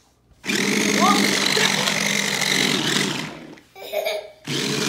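Small electric motors of a remote-control stunt car whirring loudly as it drives and spins, its wheels rattling on a wooden floor. It stops for about a second near the end, then starts up again.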